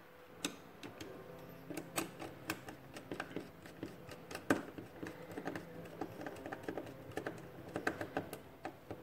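Light, irregular clicks and taps of a motor cable's wire end being fitted into a small contactor's screw terminal by hand.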